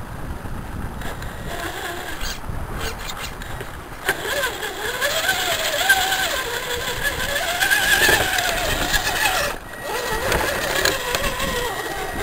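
Scale RC crawler's electric motor and gearbox whining, the pitch rising and falling as the throttle is worked while the truck crawls through wet mud and shallow water, over a rough crunching noise from the tyres. The whine drops away briefly near the end.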